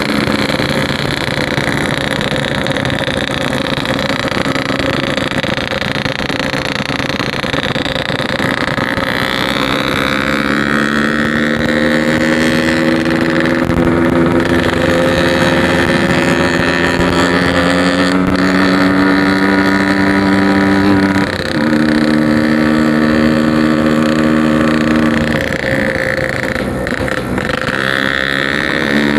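Yamaha RX-King's 135cc two-stroke single-cylinder engine running under way, its pitch climbing slowly as it pulls. The engine note breaks briefly twice in the second half, at gear changes.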